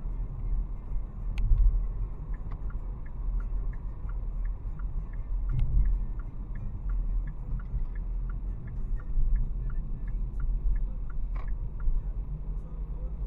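Road and engine rumble heard inside a 2023 Hyundai Tucson's cabin. Over it the turn-signal indicator ticks about three times a second, in alternating higher and lower clicks, from about two seconds in until near the end. A single louder knock comes near the end.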